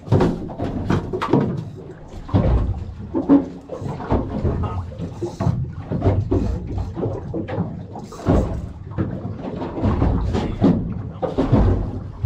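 Irregular knocks and bumps on a small fishing boat, over a heavy low rumble of wind and water on the microphone.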